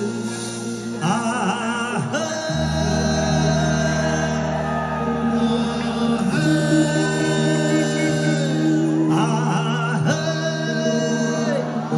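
Nepali folk-rock band playing live, with a man singing the lead over held keyboard chords. Deep bass notes come in about two and a half seconds in.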